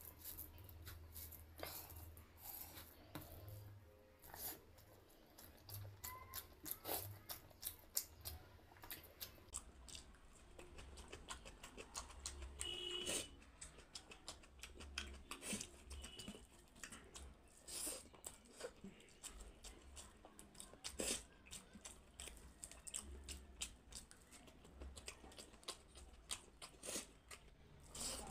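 Close-miked eating sounds: chewing, with many quick, irregular wet mouth clicks and smacks as handfuls of rice mixed with dal are eaten by hand, along with the soft squish of fingers mixing rice on the plate.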